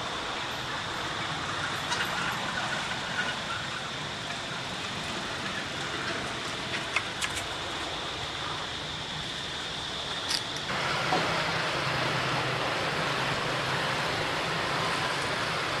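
Steady outdoor background noise with a faint, steady high-pitched whine and a few light clicks. About eleven seconds in it changes abruptly to a louder, lower hum-like noise.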